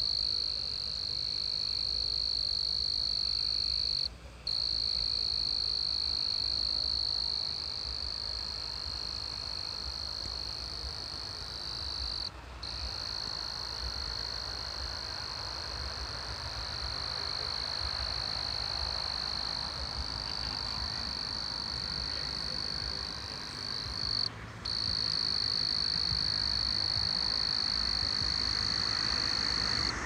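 Steady high-pitched chorus of night-calling animals, with a low rumble underneath. The chorus cuts out briefly three times.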